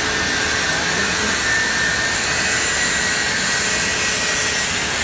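MIG (GMAW) welding arc sizzling steadily as a weld is run on steel.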